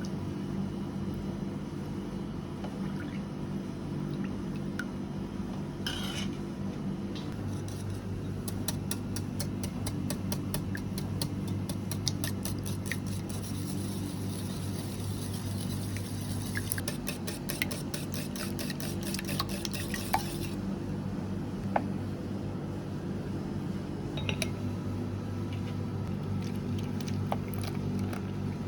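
Eggs being beaten in a bowl for tamagoyaki: a utensil clicks rapidly and evenly against the bowl, about five or six strokes a second, starting a few seconds in and stopping about two-thirds of the way through. A few separate clinks of utensils follow, over a steady low hum.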